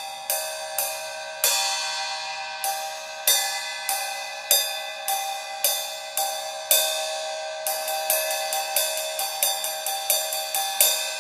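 Top plate of Zildjian K Custom Hybrid 13.25-inch hi-hats, a thin cymbal, struck again and again with a drumstick. Each hit rings on over the last, with steady ringing tones. The strokes come quicker from about eight seconds in.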